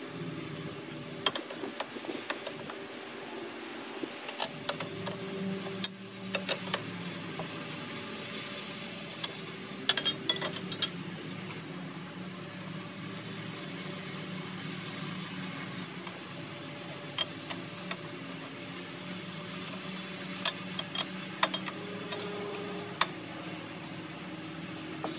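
Steel wrenches clinking against the hydraulic hose fittings as the 37-degree JIC flare nuts on a backhoe boom cylinder are turned and tightened: scattered sharp metallic clicks, the loudest cluster about ten seconds in. A steady low hum runs underneath.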